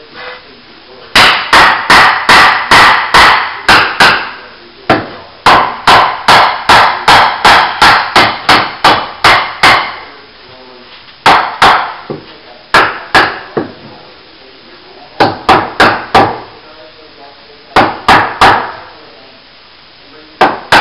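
Claw hammer driving nails overhead into a timber archway frame: sharp, ringing blows in quick runs of about three a second, with short pauses between the runs.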